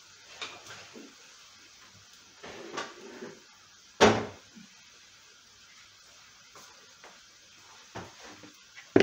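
Kitchen cupboard doors and drawers being opened and shut: a handful of scattered knocks, the loudest a sharp bang about four seconds in, with two more near the end.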